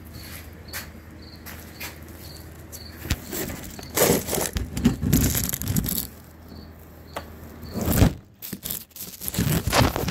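Handling noise from a phone camera being picked up and repositioned: scraping, rubbing and knocks in bursts, loudest about four seconds in, at eight seconds and near the end. Under it run a faint low hum and a faint high chirp repeating about twice a second.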